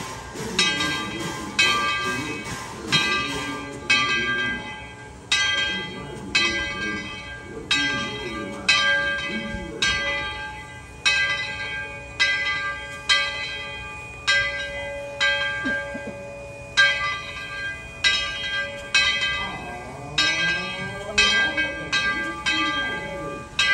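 A large bell rung steadily by a pull rope: one ringing stroke about every second, each strike humming on until the next.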